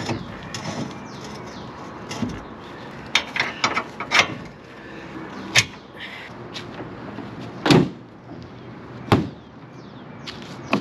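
A series of sharp metal clanks and knocks, about half a dozen spread over several seconds, as the steel shank of a trailer hitch head is fitted into a pickup's hitch receiver and worked into place.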